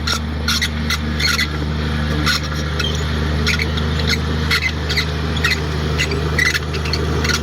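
Komatsu D58 bulldozer's diesel engine running steadily, with many short high squeaks and clanks coming irregularly over it, typical of its steel tracks working.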